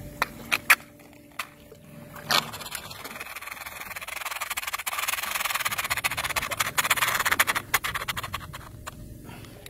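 Spinning reel working against a hooked fish: a few sharp knocks, then from about three seconds in a fast mechanical ticking rasp of gears and drag that swells and then fades near the end.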